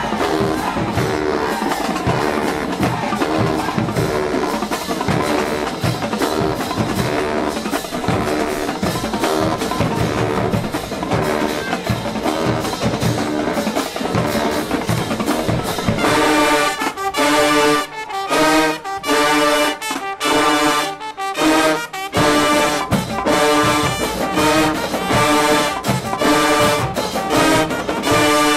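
High school marching band playing, brass section over drums. About halfway through the music turns to loud punched brass chords with short breaks between them, and it cuts off sharply at the end.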